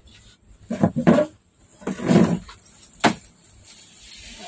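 Small metal objects jingling and clinking as they are handled, in a few short irregular bursts, with a sharp click about three seconds in.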